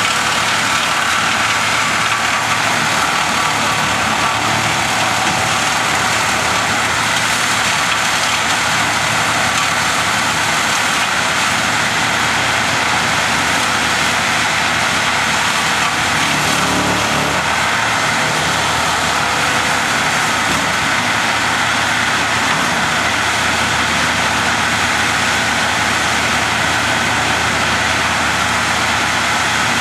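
Tree crew's heavy engine-driven machinery running steadily and loudly, with no pauses or revving.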